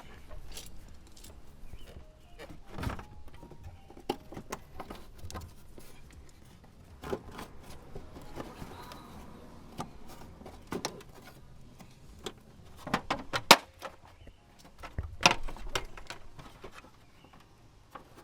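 Scattered clicks, taps and knocks of a carbon fiber fender and its hardware being handled and offered up to the car body, with a few sharper knocks past the middle.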